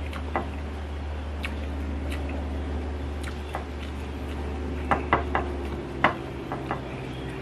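Scattered light clicks and clinks of fingers picking food off a ceramic plate while eating by hand, several in quick succession near the end, over a steady low hum.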